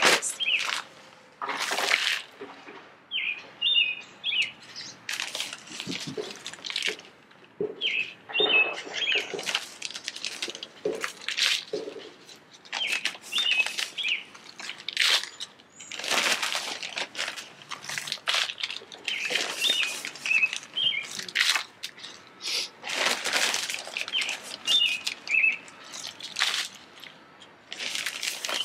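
Hands scooping potting soil out of a plastic bag and into plastic nursery pots: a run of short rustling, crinkling scrapes. Between them a bird sings a short chirping phrase about every five seconds.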